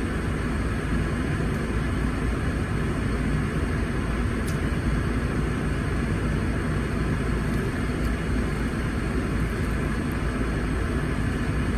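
Steady low rumble and hiss of a car cabin, with a few faint clicks.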